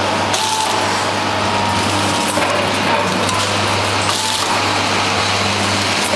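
Powder packaging machine running: a steady mechanical whir over a low hum, with a few faint clicks.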